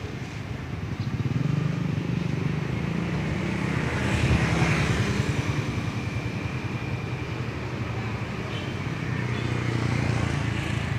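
Passing road traffic: motor vehicle engines rumbling, swelling louder and fading several times as vehicles go by.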